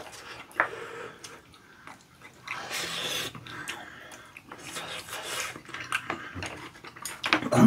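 Eating sounds: chewing curry rice, with wooden spoons scooping and scraping against ceramic bowls in short irregular bursts.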